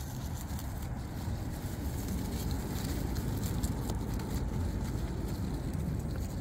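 Beaver chewing leaves and tugging at leafy branches close by: many short crackling, crunching clicks and leaf rustle, over a steady low rumble.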